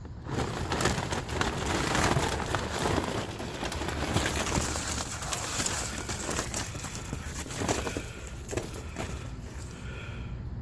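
Twigs and branches crackling and snapping against the crinkling paper of a yard-waste bag as they are stuffed in. It is a dense run of cracks and rustles that eases off about eight seconds in.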